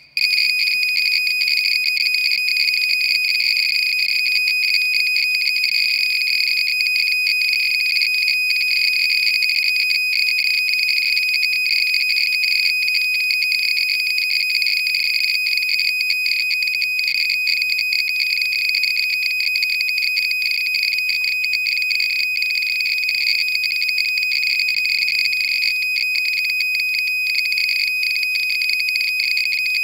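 Homemade Geiger counter with an SBM-20 tube in alarm: a steady high-pitched beep tone with a dense rush of counts around it, starting abruptly. The count rate is about 18,000 counts per minute, around 80 µSv/h, from a piece of uraninite (pitchblende) ore held against the tube.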